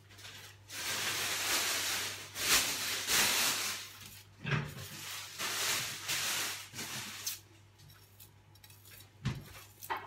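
A dull kitchen knife slicing an onion held in the hand over a bowl: a crisp, crunching rasp for the first few seconds, then a few shorter cuts and two light knocks near the end.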